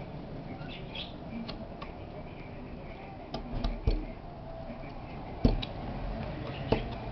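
A handful of sharp knocks and clicks, about six, in the second half, over a low steady hum.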